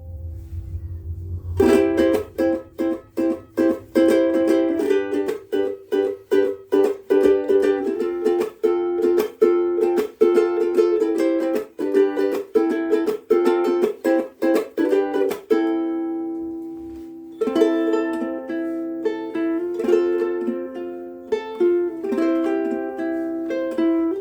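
Soprano ukulele being strummed in fast, even chord strokes, with a chord left ringing for a moment a little past halfway before lighter strumming resumes.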